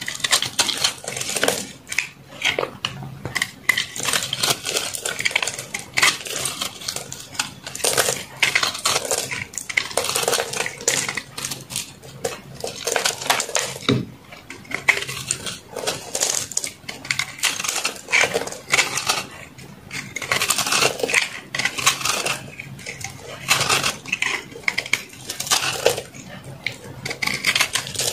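A utility knife blade carving and scraping a dry block of re-molded soap in quick, irregular strokes, with crunchy crackles as flakes break off.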